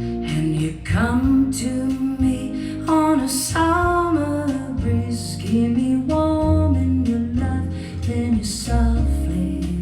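Tannoy 609 loudspeakers playing a slow sung ballad over guitar and bass.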